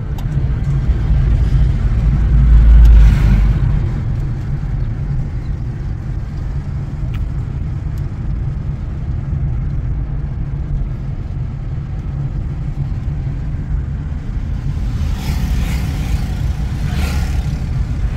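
Car driving along the road, heard from inside the cabin: a steady low rumble of engine and road noise that swells loudest about three seconds in, with a few brief hissy swells near the end.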